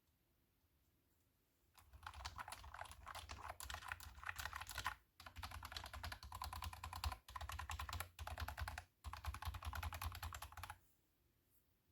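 Fast typing on a cat-themed computer keyboard: a dense run of key clicks starting about two seconds in, broken by a few short pauses, and stopping about a second before the end.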